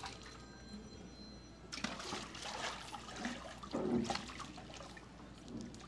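Water sloshing and splashing in a baptism tank as a person steps in and lowers into it, for a couple of seconds starting about two seconds in.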